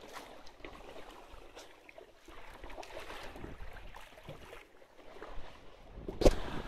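Water splashing and lapping against the hull of a 1946 Mälar 22 wooden sailboat under sail, with a sharp knock a little after six seconds in.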